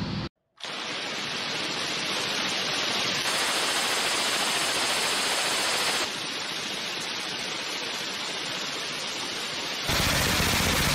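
Suppressed belt-fed machine gun firing long sustained bursts, heard as a continuous rushing roar rather than separate shots. It gets louder for a few seconds in the middle and again near the end.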